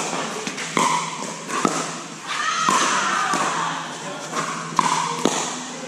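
Pickleball rally: a plastic ball knocked back and forth by paddles, about six sharp hits spaced half a second to a second apart, each ringing briefly in the hall.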